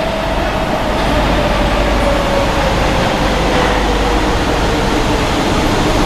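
Paris Métro MF77 steel-wheeled train arriving at an underground station: a loud running rumble that grows gradually louder, with a whine that falls slowly in pitch as the train slows.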